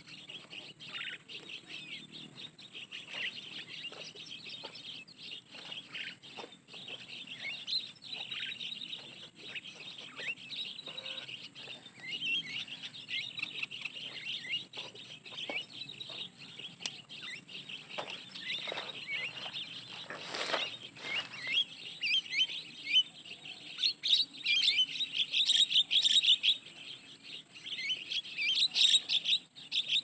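Rapid, dense chirping and twittering of starlings (jalak), getting louder and busier in the last several seconds as a flock comes down to the trapping spot.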